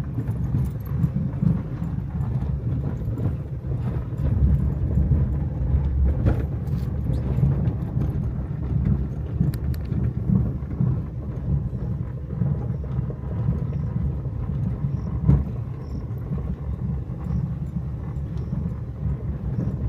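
Car driving, heard from inside the cabin: a steady low road rumble with a few sharp knocks, the clearest about six and fifteen seconds in.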